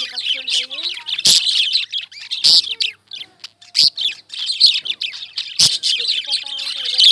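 Caged small parrots chirping and chattering continuously in high, shrill notes, with a few sharper, louder calls standing out about every second or so.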